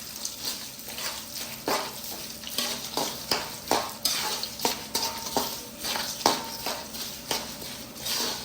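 Peanuts frying in hot coconut oil in a kadai, sizzling steadily, while a spoon stirs them with repeated sharp scrapes and knocks against the pan, one or two a second.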